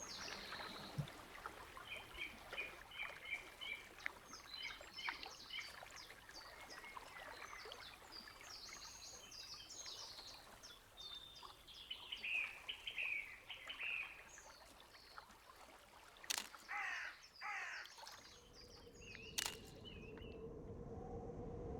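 Birds chirping and calling over faint outdoor background noise, many short high chirps with a few longer falling calls and harsher caws. Near the end a steady low tone comes in.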